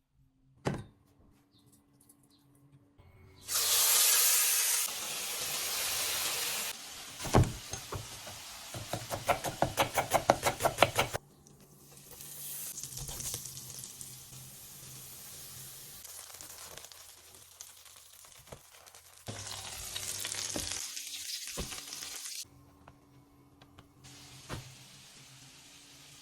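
Food sizzling in a hot frying pan. The sizzle comes in louder stretches and falls back between them, with a quick run of knocks, about five a second, lasting a couple of seconds, and a few single clicks.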